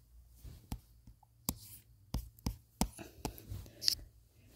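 Light taps on a touchscreen while drawing in a painting app: about seven short, sharp clicks at irregular intervals.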